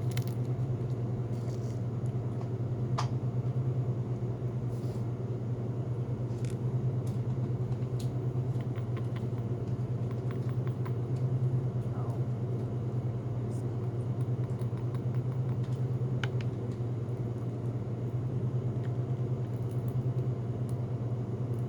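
Steady low hum of a car engine running, heard from inside the car, unchanging throughout. A few faint light clicks sound over it now and then.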